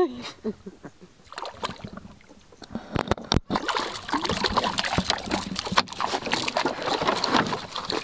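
Water splashing and sloshing beside a small boat, with a busy clatter of small knocks that thickens about three seconds in. A short pitched sound rises and falls at the very start.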